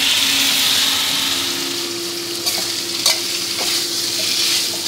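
Pork belly and red curry paste frying in a stainless steel wok. A splash of water poured in makes a loud sizzle that eases off over the first two seconds. A metal spatula then scrapes and taps against the wok a few times as the meat is stirred.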